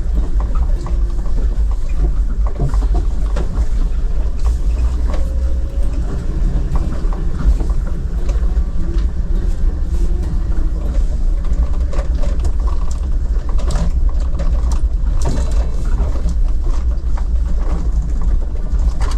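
Steady low rumble of a vehicle on the move, with scattered small rattles over it.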